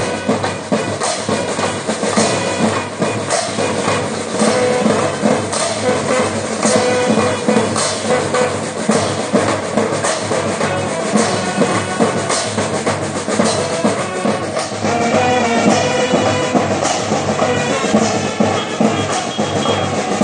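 A school band of brass instruments and drums playing a march-style tune, with a steady drum beat under the brass. The brass grows a little louder and fuller about fifteen seconds in.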